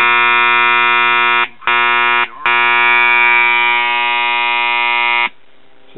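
Loud 120-cycle filter-capacitor hum buzzing from the speakers of a Realistic STA-64 stereo receiver. It cuts out briefly twice, about a second and a half and two and a quarter seconds in, then stops about five seconds in as the capacitor is moved. It is the sign of an intermittent connection at the 4700 µF electrolytic power-supply filter capacitor, either a bad solder joint or a fault inside the capacitor.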